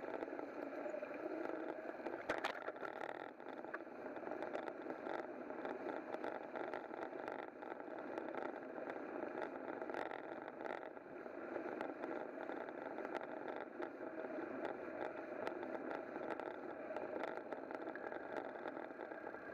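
Steady rolling and street noise picked up by a camera moving along a road, with scattered clicks and knocks.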